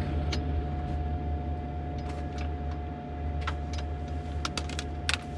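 Sailboat's inboard engine idling steadily: a low hum with a thin steady whine above it and scattered light clicks.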